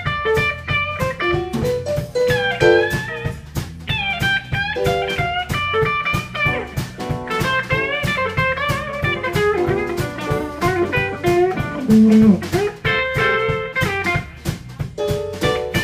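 Live blues band playing: a hollow-body electric guitar plays bending lead lines over a steady beat from a drum kit and sustained Hammond organ.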